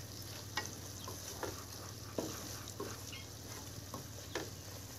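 Wooden spatula stirring tomato, onion and green chilli masala in a kadai, with a soft sizzle and several light knocks and scrapes of the spatula against the pan as the spices are mixed in.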